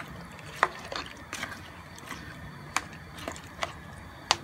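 Plastic spoon stirring raw potato chunks and chillies in water in a cooking pot: light sloshing with several short knocks of the spoon against the pot and potatoes, the loudest near the end.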